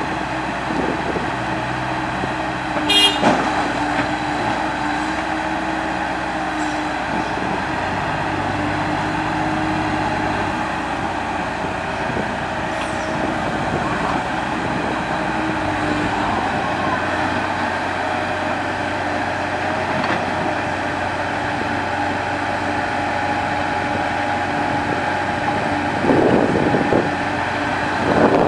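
Komatsu PC70 hydraulic excavator's diesel engine running steadily as it digs and loads, its pitch and load shifting several times. There is one sharp clank with a brief ringing about three seconds in, and a louder stretch near the end.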